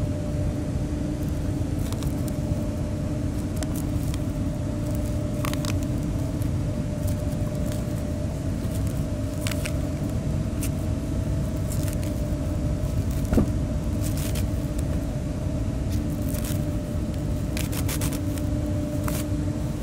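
Plastic cling film and bubble wrap being cut and peeled off a cardboard box: a scatter of short crackles and rustles over a steady low hum.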